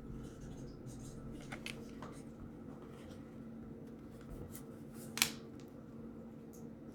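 Faint, scattered light clicks and rubbing over a steady low hum, with one sharper click about five seconds in.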